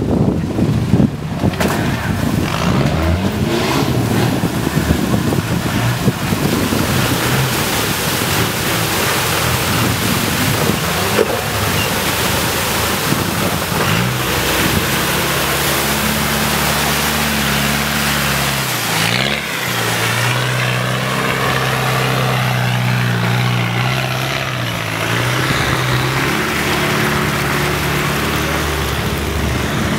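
Land Rover Discovery engine running as the 4x4 edges down a steep mud bank and wades through a muddy water crossing, with water washing around it. About halfway through, the engine settles into a steady note that dips briefly a few seconds later and then holds.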